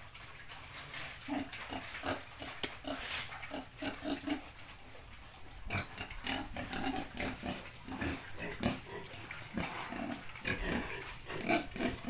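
Domestic pigs grunting close to the microphone: short, irregular grunts one after another.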